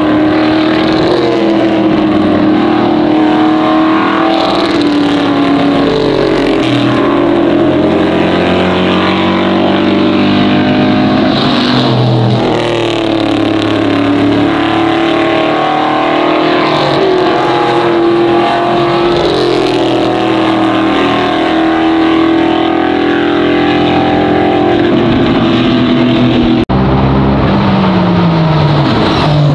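Several race car engines running hard on the circuit, overlapping, their pitch rising and falling again and again as the cars accelerate, lift and change gear. The sound breaks off sharply once near the end.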